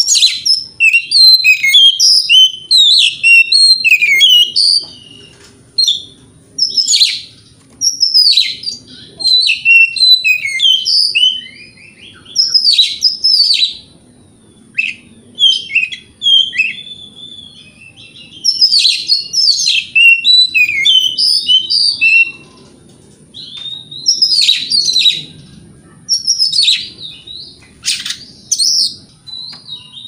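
Oriental magpie-robin (kacer) singing: loud bouts of quick, varied whistles and chirps, each bout lasting a second to a few seconds, separated by short pauses.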